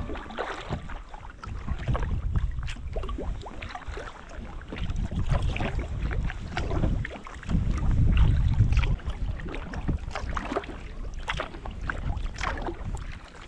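Kayak paddle dipping and splashing in the water in irregular strokes, with wind buffeting the microphone, heaviest about eight seconds in.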